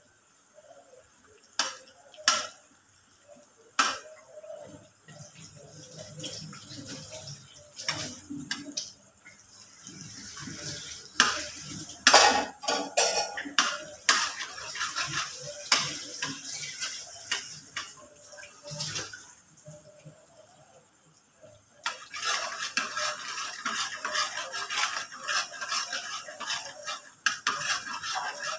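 Metal spatula scraping and clinking against an aluminium wok while stirring melting butter. Sharp taps come now and then, with longer spells of steady scraping about a third of the way in and again near the end.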